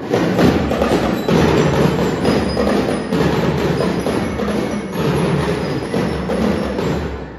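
Drum and lyre band playing, with snare and bass drums beating a steady march rhythm under the ringing of bell lyres. The music starts suddenly.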